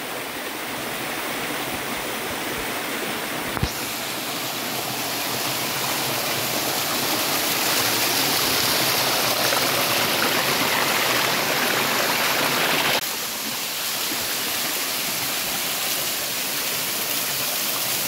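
Small waterfall pouring down a rock face and splashing onto stone: a steady rush of falling water. It grows louder for several seconds in the middle and drops back suddenly about thirteen seconds in. A brief knock sounds a few seconds in.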